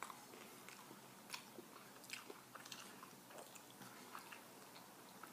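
Faint chewing of a soft wrap with lettuce: irregular small wet mouth clicks and smacks.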